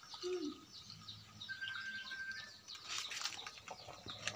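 Birds chirping busily all through, with one held, steady whistled note about a second long partway through, and a sharp click near the end.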